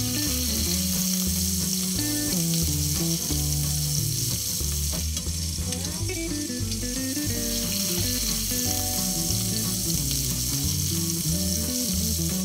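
Pork chop frying in hot oil in a stainless steel skillet, a steady sizzle, with a spoon scraping and basting the oil over the meat. Low held notes, like background music, run underneath.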